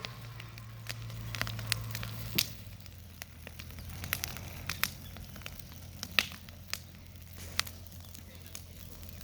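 Wood bonfire burning, crackling with irregular sharp pops, over a steady low hum.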